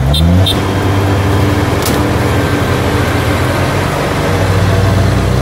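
Kubota DC-70 rice combine harvester's diesel engine revving up sharply, then holding a loud, steady high-revving run under heavy load as the bogged machine is pulled out of deep mud. A few short electronic beeps sound at the very start.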